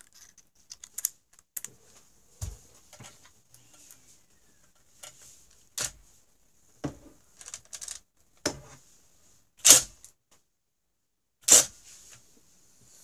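Irregular clicks and knocks from a cordless drill's bit skipping in the soft brass Phillips head of a snowmobile stator screw, stripping it out. Two louder knocks come near the end.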